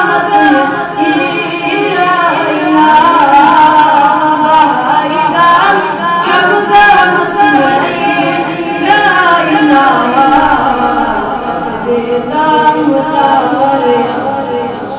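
A boy's voice singing a Kashmiri naat, a devotional song in praise of the Prophet, solo and unaccompanied, in a continuous wavering melody.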